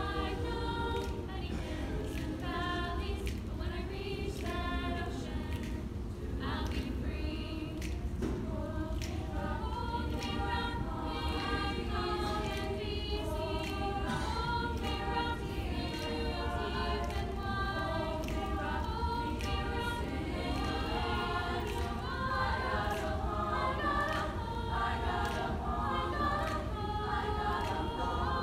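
A women's choir singing in harmony, several voice parts together, without a break.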